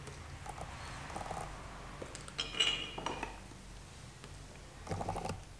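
Soft handling noises and light puffing on a tobacco pipe, with a short run of metallic clinks from a tobacco tin picked up from the table about two and a half seconds in.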